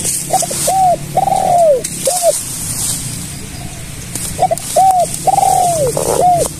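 Spotted dove cooing: two phrases of short arched coos with one longer drawn-out coo in the middle, one near the start and another about four seconds in.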